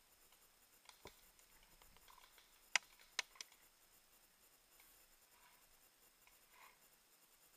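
Three sharp paintball marker shots in quick succession about three seconds in, after a fainter click about a second in; otherwise quiet.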